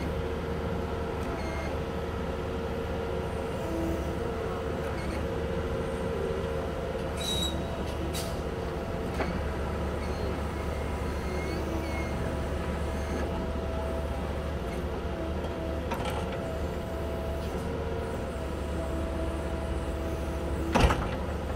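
Bobcat mini-excavator's diesel engine running steadily under hydraulic load, with a low drone and tones that shift as the Rototilt tiltrotator bucket swings, tilts and digs. A few light clicks, and one sharp clank near the end.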